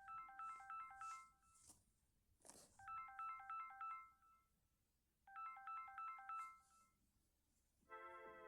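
Electronic alarm tone: a burst of rapid, high beeping notes about a second and a half long, repeated three times about every two and a half seconds. Near the end a different alarm tone begins, a continuous chiming melody like mallet percussion.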